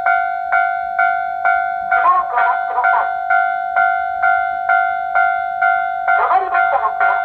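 Japanese railway level-crossing alarm ringing its electronic bell about twice a second. Over it, the talking crossing's recorded female voice speaks short announcement phrases, about two seconds in and again near the end, warning that a train is coming.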